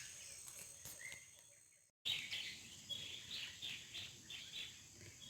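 Faint forest ambience fades out about two seconds in and cuts back in. From there, many short bird calls and chirps repeat several times a second from birds feeding in a fruiting fig tree.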